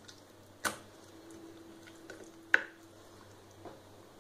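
Hand rubbing turmeric into raw king fish steaks on a ceramic plate: soft, faint squishing with two sharp clinks against the plate, about a second and two and a half seconds in, the second ringing briefly.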